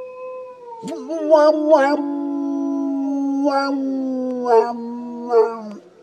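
Dog howling: a howl tails off in the first second, then a long, held howl starts about a second in and slowly falls in pitch, with short wavering yelps breaking in several times, before it stops near the end.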